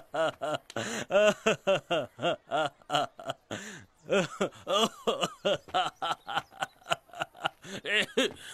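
A man's long, unbroken laughter: a steady run of short "ha-ha" syllables at about four a second, with a brief dip a little before halfway.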